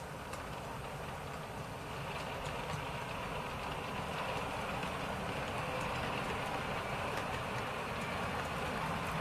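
Model train running on the layout's track: a steady rumble growing slowly louder, with scattered faint clicks.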